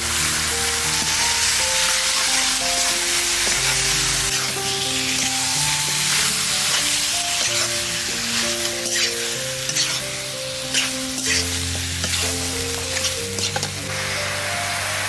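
Food sizzling as it fries in hot oil in a pan, with a few sharp clicks in the second half. Background music plays a melody throughout.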